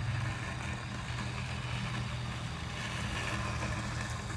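Mammotion Luba 5000 robotic lawnmower running as it mows grass: a steady motor hum over an even hiss.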